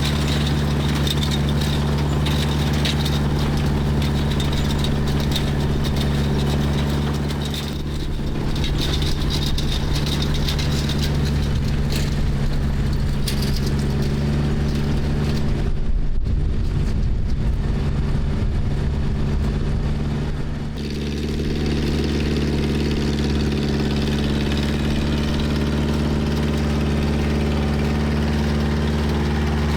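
Tractor engine running steadily while driving a John Deere 346 square hay baler, with the machinery's clatter over the engine tone. The sound shifts briefly about eight seconds in and again for a few seconds past the middle, then settles back to the same steady running.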